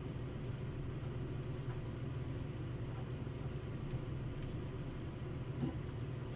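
Steady low background hum of the room, with a single faint click about five and a half seconds in as a screwdriver works at the unit's case.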